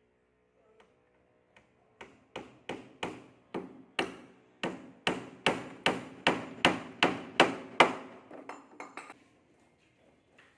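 Hammer striking repeatedly, about twenty sharp blows at two to three a second. They start about two seconds in and grow louder, then finish with a few lighter taps.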